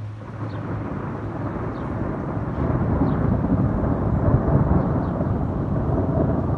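Rolling thunder: a low rumble that swells over the first three seconds and keeps on rumbling.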